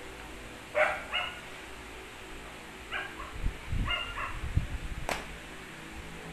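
Dogs play-fighting, giving short, high barks in two pairs, about a second in and again around three to four seconds, with low thuds among the second pair and a sharp click near the end.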